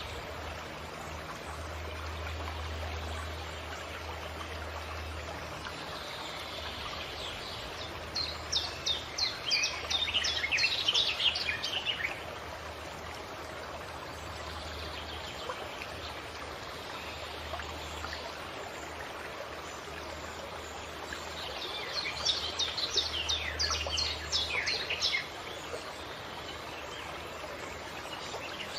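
A stream running steadily, with a songbird singing twice, each time a few seconds of rapid high notes.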